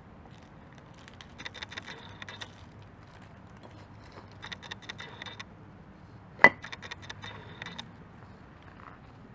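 1/10 scale RC rock crawler with a Fusion Pro brushless motor driving over rocks in three short spurts of about a second each: a steady high motor whine with the drivetrain and knobby tyres clicking and scraping on stone. A single sharp knock, the loudest sound, comes just before the third spurt.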